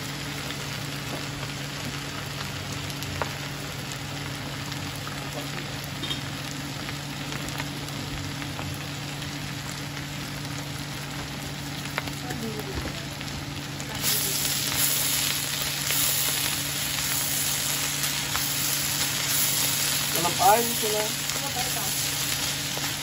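Shredded bamboo shoots sizzling as they fry in a hot nonstick pan, stirred with a wooden spoon, over a steady low hum. The sizzle grows louder and brighter a little over halfway through.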